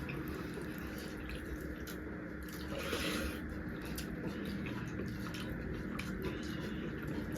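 Faint wet eating sounds of rice with thin meat curry, with small scattered clicks and squelches.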